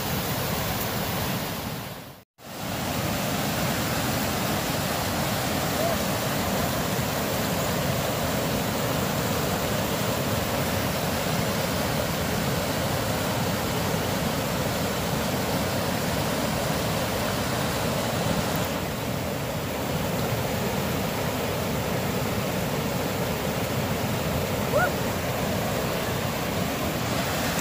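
Rushing snowmelt mountain creek cascading over rocks: a steady rush of white water, which cuts out for a moment about two seconds in.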